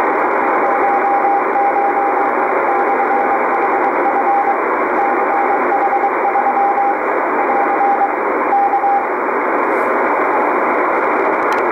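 Morse code (CW) marker from the KSM maritime coast station on 16914 kHz, received on an Icom IC-R8500 shortwave receiver: a single steady tone keyed on and off in dots and dashes over loud band hiss. The keying stops about nine seconds in, leaving only the hiss.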